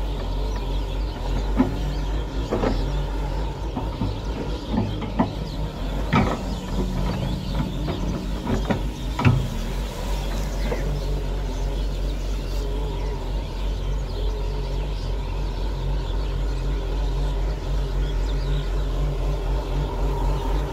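Hyundai crawler excavator's diesel engine running steadily under working load, with several sharp clanks in the first half.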